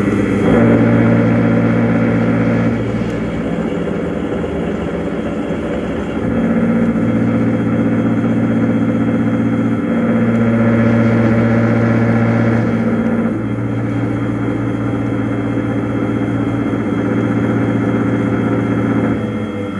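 Boxford 190VMC CNC milling machine cutting with a 4 mm drill bit: a steady spindle hum that steps louder and quieter every few seconds as the tool works through the first shape, easing off near the end.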